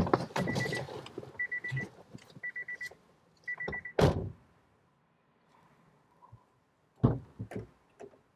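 A car's door-open warning chime sounds four times, a quick high beeping about once a second, while the driver's door stands open. About four seconds in the door shuts with a heavy thunk, and a few sharp knocks follow near the end.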